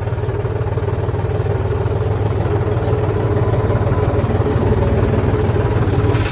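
John Deere 5105 tractor's three-cylinder diesel engine running steadily under way, heard from the driver's seat, with a constant low hum and mechanical clatter.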